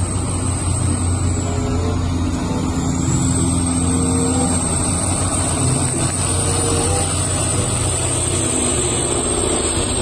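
Large off-highway mining haul truck driving past on a dirt haul road, its big diesel engine running in a steady deep drone. A thin high whine sits over it.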